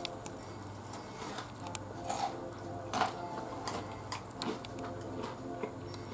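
A person chewing food, with irregular small clicks and crackles as chopsticks tap a ceramic bowl. A couple of louder clicks come about two and three seconds in.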